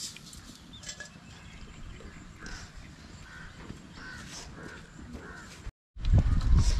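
Crows cawing, a run of about six short caws in the middle, over a low background. Near the end, after a brief cut-out, comes a louder low rumble of handling or wind noise.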